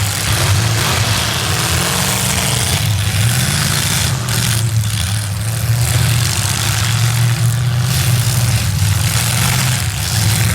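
V8 demolition derby car engines running loud, a steady low drone with small rises and falls in pitch as the drivers work the throttle.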